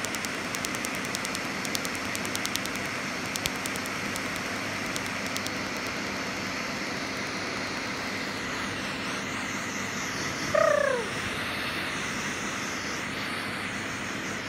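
Tattoo-removal laser clicking sharply with each pulse, several clicks a second, over a steady rushing noise; the clicking stops about five seconds in. A brief falling squeal about ten seconds in.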